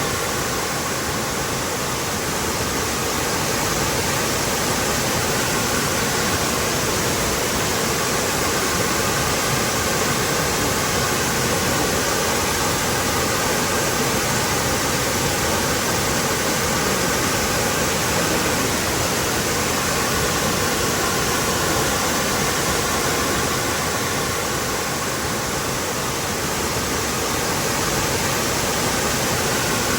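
Waterfall: a steady, even rush of falling water with no breaks or sudden splashes.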